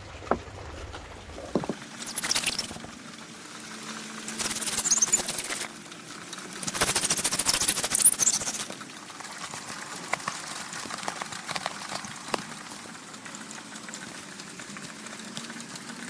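Cured expanding foam on a 3D archery target being worked by hand: three bursts of scratchy rustling and scraping, the longest near the middle, with a few light clicks between them.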